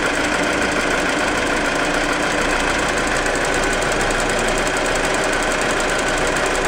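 Audi A4 2.0T turbocharged four-cylinder engine running steadily, with a fast, even ticking over its hum.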